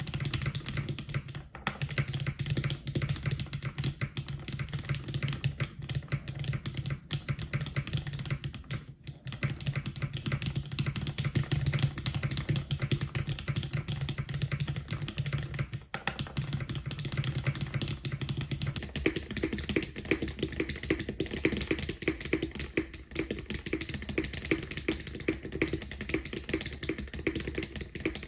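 Continuous fast typing on a custom mechanical keyboard with lubed Cherry MX Black linear switches on an aluminium plate, a dense run of keystroke clacks. About two-thirds of the way through, the keystrokes lose some of their deep tone and sound higher.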